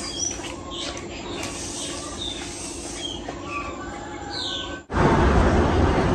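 Small birds chirping in short, scattered calls over a steady low hum. About five seconds in, this cuts off abruptly to a louder, steady, noisy machine sound.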